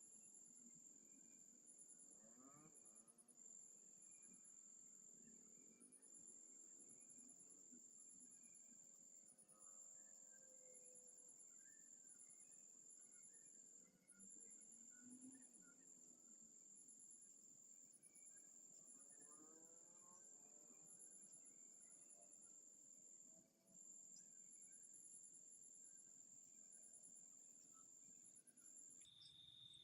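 Faint chorus of night insects, crickets by their sound: a steady high-pitched trill with short breaks, and quicker pulsed chirps above it. About a second before the end the high trill stops and a lower steady trill takes over.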